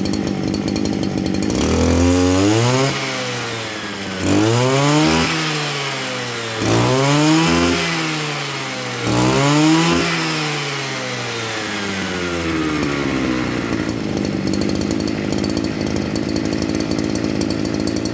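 Shindaiwa 252 brush cutter's two-stroke engine idling, then revved four times in quick succession. Each time the pitch shoots up and glides back down, and it settles back to a steady idle for the last few seconds.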